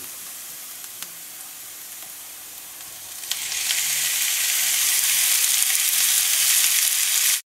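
Onions frying in olive oil in a hot pan, a quiet steady sizzle. About three seconds in, with a clack, raw ground beef is tipped from a bowl into the pan and the sizzle turns much louder, building until it cuts off suddenly.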